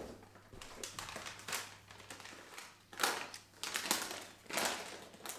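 Gift-wrapping paper rustling and crinkling in irregular bursts as it is handled and folded around a present.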